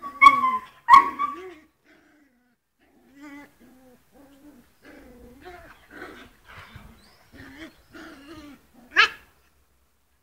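A dog and a Siamese cat play-fighting, with animal cries: two loud yelps near the start, then a string of short, wavering whining growls, and a sharp rising yelp near the end.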